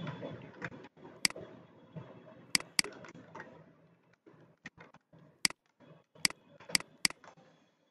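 Sharp, isolated clicks of a computer keyboard and mouse, about seven in all, irregularly spaced over a faint room hum.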